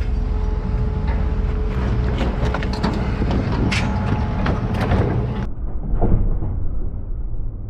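Metal scrap being handled and loaded, with scattered clanks and knocks over a steady low rumble. About five and a half seconds in, the sound turns duller and quieter in the highs.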